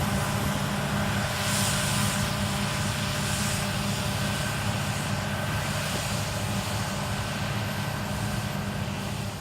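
Claas Lexion 740 combine harvester running steadily: a low, even droning hum with a hiss over it.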